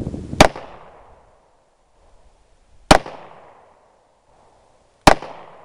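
Three shots from a Smith & Wesson .38 Special Airweight revolver, about two and a half seconds apart, each trailing off in a short echo.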